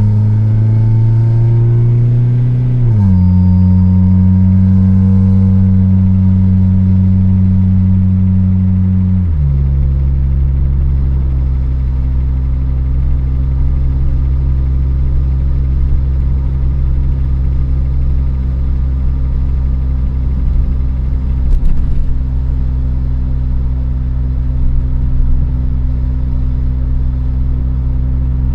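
Honda del Sol's D16Y8 1.6-litre four-cylinder engine running, its speed dropping in two steps, about 3 and 9 seconds in, then holding a steady idle. The engine is worn: bearing wear and low oil pressure, which give it a tapping, ticking noise.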